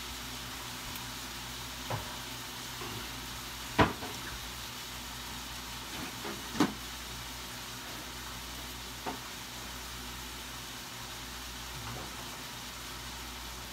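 Steady sizzling from a pan on a lit gas burner, broken by a few scattered knocks and clatters, the loudest about four seconds in and another between six and seven seconds.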